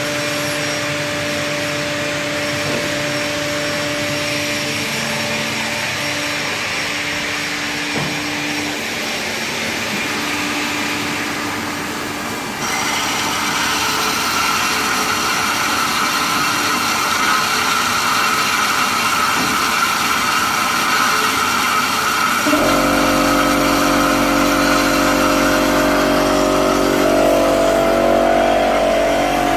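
Automatic CNC metal-cutting band saw with its hydraulics running through an automatic cutting cycle: a steady machine hum, joined by a higher whine about a third of the way in, and by a louder, deeper hum with several steady tones a little past two thirds of the way.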